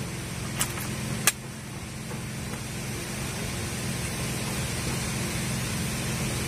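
Two sharp metallic clicks about two-thirds of a second apart near the start, as the PCP air rifle's bolt is worked to chamber the next pellet between shots, over a steady low background rumble.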